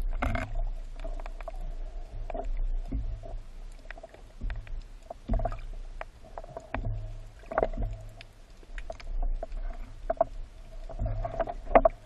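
Muffled underwater sound picked up through a camera's waterproof housing: a low rumble of moving water with irregular clicks and knocks, which come more often near the end.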